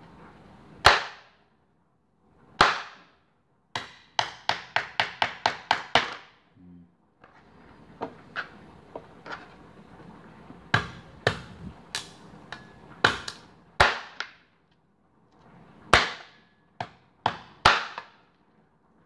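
Cleaver chopping cooked chicken on a plastic cutting board: sharp single chops, a rapid run of about eight strokes a few seconds in, then scattered chops at an uneven pace.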